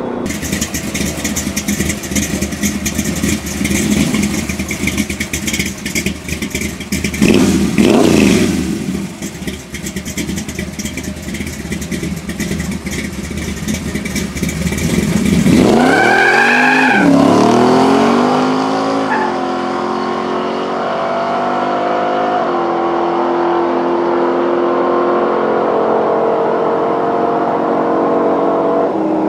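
Muscle car engine, loud and rough with a brief surge of revs partway through. Just past halfway it accelerates hard, the pitch climbing steeply, then climbs through several gear changes, each a drop in pitch followed by another rise, as the car pulls away.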